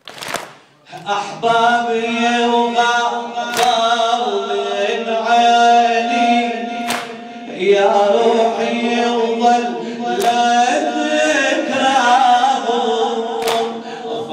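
Amplified male voice chanting a Muharram lament (noha) in a long, melismatic line, punctuated about every three seconds by a single loud, sharp slap: the mourners' unison chest-beating (latm).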